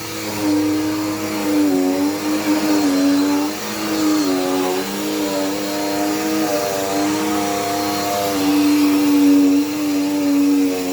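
Dirt Devil Power Max vacuum cleaner running, its motor whine wavering and dipping slightly in pitch several times as the load on it changes.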